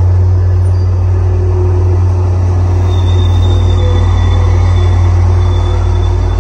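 Tri-Rail commuter train rolling past: its bilevel coaches and then its diesel locomotive give a loud, steady low rumble. A thin, high, steady whine joins about halfway.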